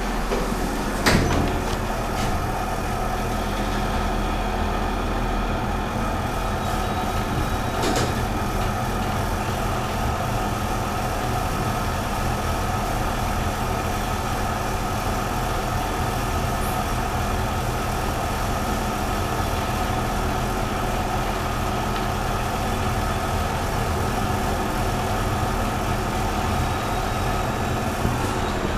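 1990s Thyssen lift in motion: the steady hum of the car and its drive, with a sharp clack about a second in and a lighter one near eight seconds.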